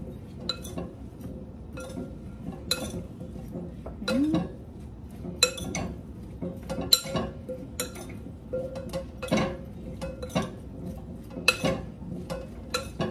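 Metal spoon clinking and scraping against a glass mixing bowl in irregular taps while squash pieces are tossed in sauce.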